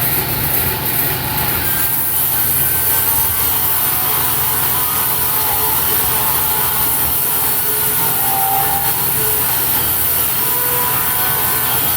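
Table saw ripping a rough-sawn hardwood board lengthwise: a steady run of blade noise through the cut.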